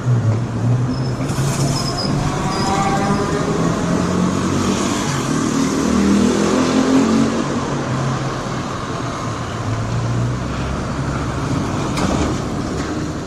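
City street traffic: motor vehicle engines running and passing over a steady wash of road noise.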